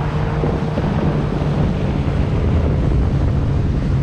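Motorboat engine running with a steady hum while the boat is under way, with wind buffeting the microphone.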